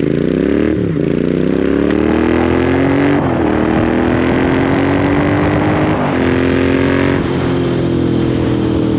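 Royal Enfield Interceptor 650's parallel-twin engine through Lextek slip-on exhausts with the baffles removed, accelerating hard through the gears. The note rises, dips at each of four upshifts, then holds steadier near the end.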